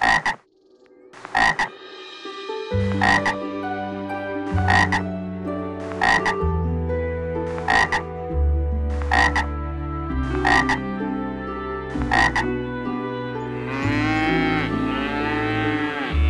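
Short, sharp frog croaks repeating about every one and a half seconds over a low hum that shifts in pitch, then a cow mooing in a long wavering call near the end.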